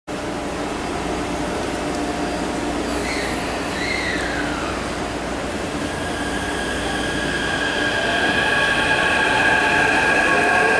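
Taipei Metro C371 electric train starting off and pulling out of the station: a steady running hum. From about six seconds in, several high whining tones come in, and near the end a tone rises as it gathers speed and grows louder.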